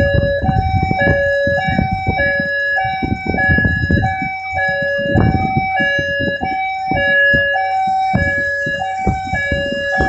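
Two-tone hi-lo warning alarm sounding continuously, switching between a higher and a lower tone about every half second: the alarm of an ammonia tank deluge system under test. Irregular low rumbling noise runs underneath.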